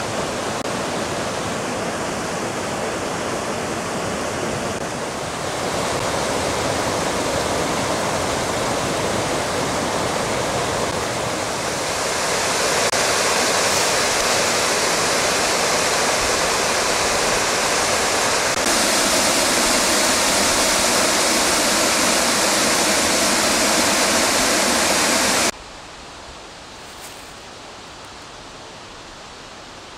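Rushing water of a mountain stream and waterfall: a loud, steady rush that shifts abruptly in level and tone several times. About 25 seconds in it drops off suddenly to a much quieter steady hiss.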